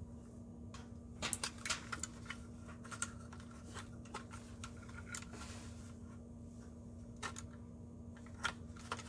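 Scattered clicks and light rattles of a range's clock control board and its plastic wire-harness connector being handled and connected, over a steady low hum.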